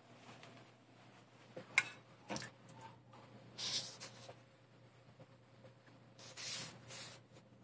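Camera handling noise: two sharp clicks a couple of seconds in, then two brief rustling, rubbing bursts, over a faint steady low hum.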